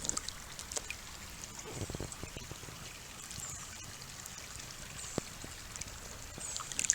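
Shallow creek water trickling, with a few small clicks and light splashes.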